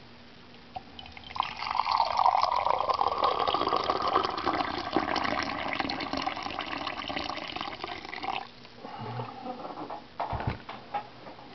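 Hot liquid poured in a steady stream into a ceramic mug, starting about a second in and stopping abruptly after about seven seconds. A few drips and light knocks follow.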